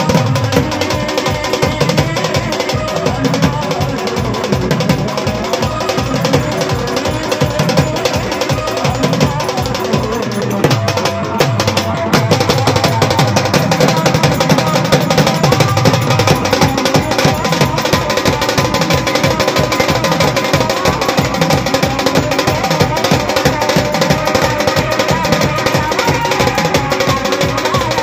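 Live Marathi gondhal folk music, amplified, driven by hand drums beating a fast, steady rhythm under sustained melodic tones; it gets a little louder about twelve seconds in.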